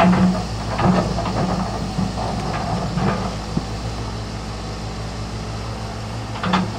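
Volvo EC210 crawler excavator's diesel engine running steadily under load while the bucket digs into rocks and soil, with crunching clatter of stone against the bucket near the start, about a second in, around three seconds and again near the end.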